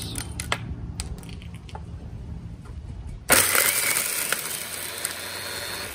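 A few sharp clicks and clatters as rocks go into the feed tube of a homemade rock crusher. About three seconds in, the Makita 4.5-inch angle grinder driving the crusher switches on suddenly with a high whine, and the rocks are crushed in a pulse of a couple of seconds.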